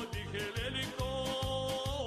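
Background music with a steady beat and a held, wavering melody line.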